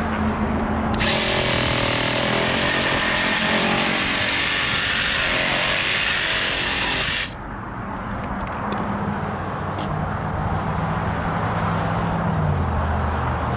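Power saw cutting through PVC irrigation pipe: a loud, even cutting noise that starts about a second in and stops abruptly about six seconds later.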